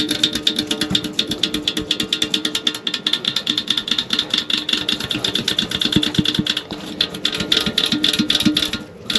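Background music led by guitar, with a fast, even beat.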